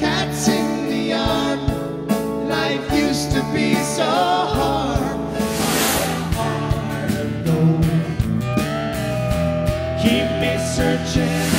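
Live rock band playing: electric guitar, bass guitar and drums with sung vocals, a steady drum beat throughout.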